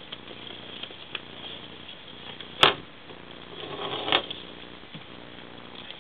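Ferrets scampering and scuffling on a wooden floor, with a sharp knock about two and a half seconds in and a softer rustling scuffle ending in a bump near four seconds, over a steady low hum.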